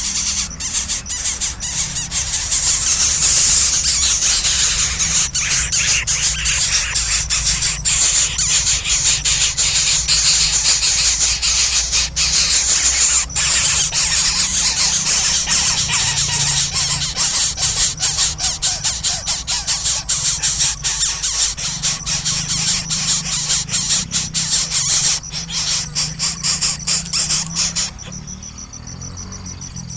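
Nestling birds squealing shrilly and continuously, a dense high-pitched racket. About two seconds before the end it gives way to a quieter, steady high tone.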